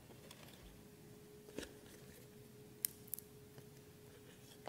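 Quiet room tone with a faint steady hum and a few small, sharp clicks: one about one and a half seconds in, then a pair around three seconds.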